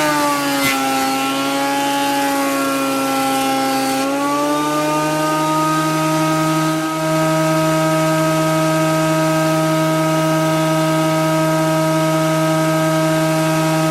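Titan planer thicknesser running, its motor pitch sagging for the first few seconds as it takes a cut, then rising back and holding a steady free-running tone. The freshly fitted blades are being tested.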